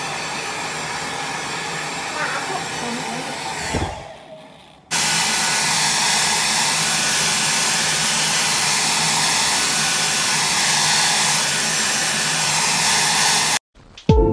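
Hair dryer blowing steadily to dry the wet toy babies; it dies away about four seconds in, starts again a second later and cuts off abruptly near the end.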